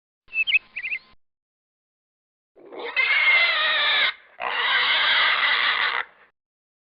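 Animal sound effects: a few short rising chirps, then two long harsh squeals of about a second and a half each.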